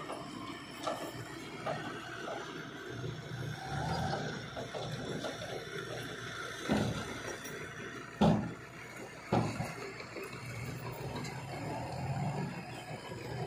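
Irregular rushing, pouring noise with three sharp thumps in the middle, the second of them the loudest.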